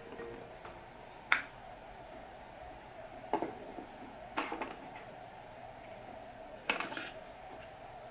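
Hard plastic toy cart parts, wheels and red frame pieces, being handled and set down on a table: four short knocks and clacks, the sharpest about a second in. A faint steady hum runs underneath.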